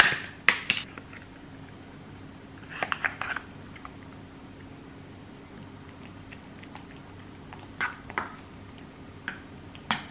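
Metal spoon stirring soft cream cheese and chopped green onions in a stainless steel bowl: soft squishing with clinks and scrapes against the bowl. A few sharp knocks near the start, a cluster of clicks about three seconds in, then scattered clinks toward the end.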